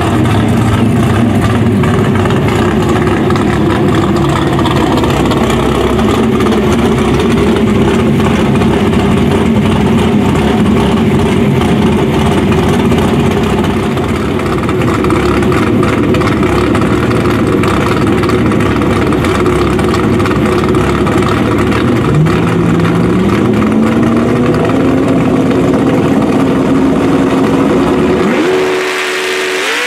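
Race car engines running loudly at the drag strip starting line, the red C5 Corvette's among them. A little past two-thirds in, one engine's pitch climbs in steps and holds high as it is held at revs before the launch, and near the end the sound changes abruptly.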